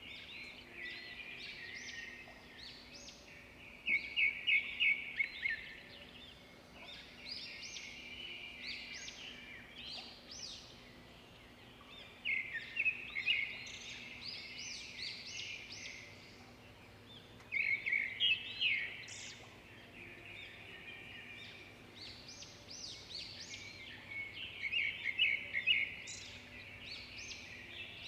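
Songbirds chirping and trilling continuously, with a louder burst of rapid repeated notes four times.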